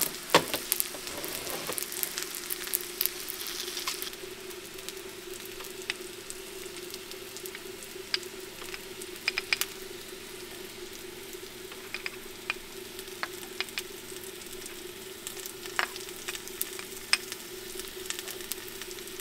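Food sizzling in hot oil, a steady hiss with scattered pops and crackles, busiest in the first few seconds. A steady low hum runs underneath.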